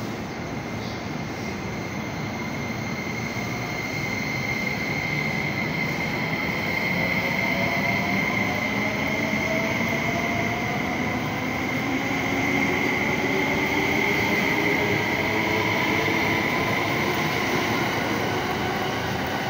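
JR East E261-series Saphir Odoriko electric train pulling out and accelerating past, its motor whine rising in pitch with the speed, over wheel and running noise and a steady high tone. It grows louder through the first half and then holds steady.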